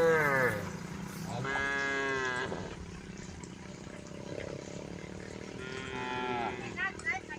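Cattle mooing: a call falling away at the start, a long full moo soon after, and a fainter moo later, with a few short high chirps near the end.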